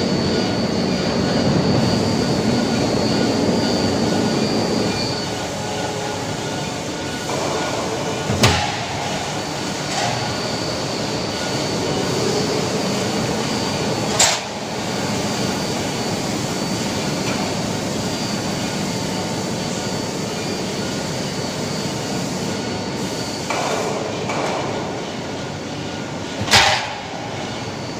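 Pallet-rack upright roll forming machine running: a steady mechanical hum of the forming rollers with a high, steady whine over it, broken by three sharp metallic bangs.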